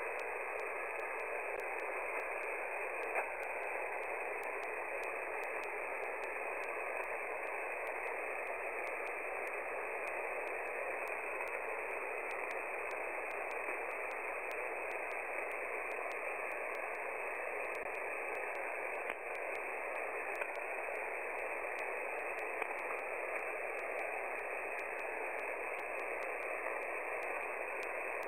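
Shortwave receiver hiss on an open 20-metre single-sideband voice channel with no station transmitting: steady, narrow band noise with a few faint clicks of static.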